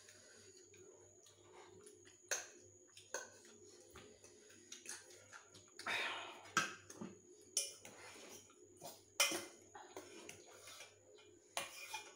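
Forks and spoons clicking against ceramic bowls and a steel pot while noodles are eaten, with a few short slurps of noodles in between.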